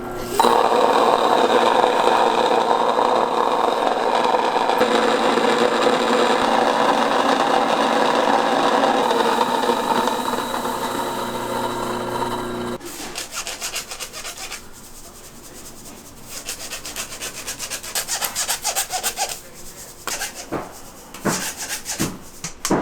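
A motorised mill grinding Jeju tartary buckwheat into flour: a steady, loud grinding with a constant machine hum. About thirteen seconds in it drops to a quieter, fast, even rasping.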